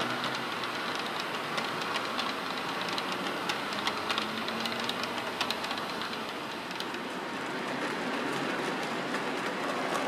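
OO gauge model train of coaches, hauled by a Bachmann Class 47, rolling along the layout track. A steady rolling noise is laced with many light clicks of the wheels over the rail joints. It eases slightly about two-thirds of the way through, then builds again.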